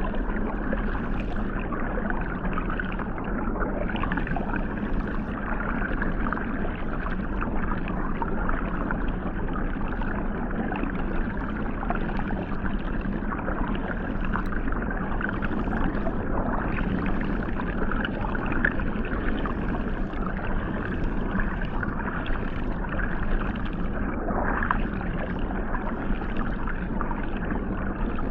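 Hot tub water jets heard from underwater: a steady, muffled rush and churn of water, with most of the sound low and little above a couple of kilohertz.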